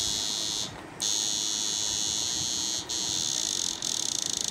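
Homemade 10-foot digital electric fishing machine (a 1500 W battery inverter) giving off a high-pitched electrical buzz while it runs. The buzz cuts out for a moment just under a second in and twice briefly later, and near the end it turns into a rapid pulsing as the volume knob is turned.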